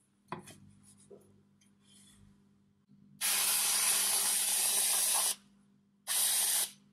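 Aerosol can of whipped cream spraying: a long hiss of about two seconds, then a shorter one, after a light knock near the start.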